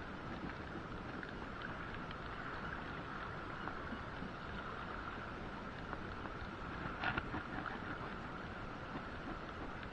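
Steady wind and water noise on a boat at sea, with a brief clatter of a few clicks about seven seconds in.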